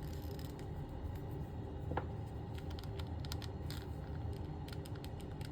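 Faint, scattered light clicks and taps of small plastic parts being handled as a 1/6 scale action figure's face plate is worked off for a swap, one slightly sharper click about two seconds in, over a low steady room hum.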